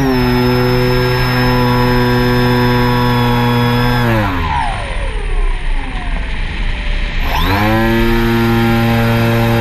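FPV drone's electric motors and propellers running at a steady high pitch; the throttle is cut about four seconds in so the pitch falls away, then it is punched back up about three seconds later and the steady pitch returns.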